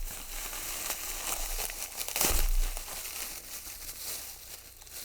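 Packing wrap being crinkled and pulled apart by hand to unwrap a bundled padlock, a continuous crackling and rustling that gets loudest about two seconds in.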